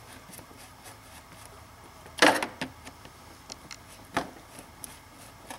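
Upper radiator hose being twisted and wiggled by hand on its connector: quiet handling noise with faint ticks, a short loud scrape about two seconds in and a smaller knock near four seconds.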